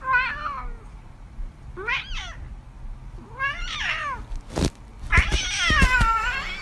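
A domestic cat meowing four times: three short meows, then a longer, drawn-out meow near the end. A few sharp knocks come around the last meow.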